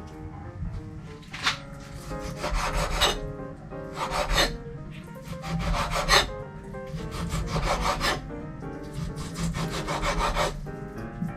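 Knife chopping raw beef on a cutting board in quick runs of strokes, about eight bursts with short pauses between them.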